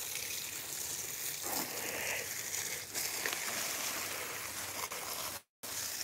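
Water spraying from a garden hose onto potted plants and mulch, a steady hiss, with a brief dropout in the sound near the end.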